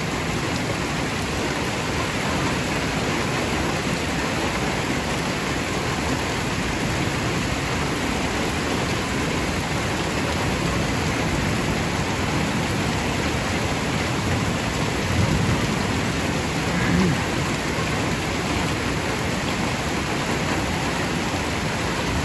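Heavy rain pouring down steadily in a storm, an even rushing hiss of downpour.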